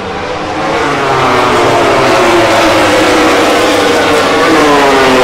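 Several MotoGP race bikes' four-cylinder engines running hard as they go through a corner, growing louder over the first second and then staying loud. The engine notes overlap and their pitch falls gradually in the second half.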